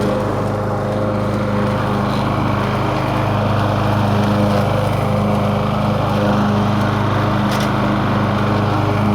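Gasoline lawn mower engine running at a steady speed after a fuel-system repair.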